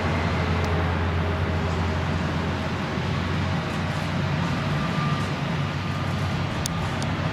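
Boeing 787-8 Dreamliner's jet engines at taxi power: a steady low rumble with a faint whine over it.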